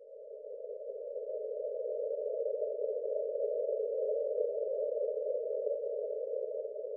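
Synthetic breath-pacing sound for a slow rhythmic breathing exercise: a low, narrow whoosh that swells over the first few seconds, then eases off a little near the end, marking one long breath.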